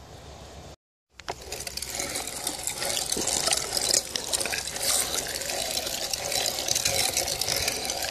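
Meat grinder running, grinding venison into hamburger, starting about a second in and continuing steadily with many small clicks.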